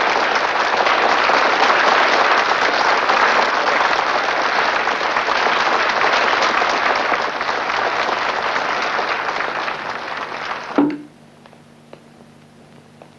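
Applause: dense, steady clapping that cuts off abruptly about eleven seconds in, leaving a faint low hum and a few light ticks.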